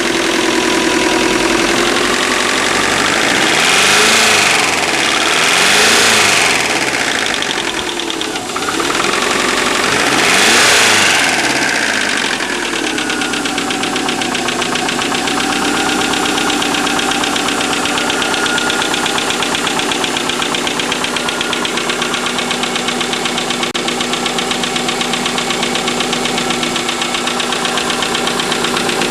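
Subaru EJ25 2.5-litre flat-four engine with a rapid knock, blipped up three times and then settling to a steady idle with the knock ticking on. The owner cannot tell whether the knock is piston slap or a worn rod bearing.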